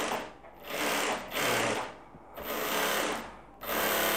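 Jack F4 industrial lockstitch sewing machine running in several short bursts of about a second each, stopping and starting again. It is running smoothly now that its no-power fault on the power control board is repaired.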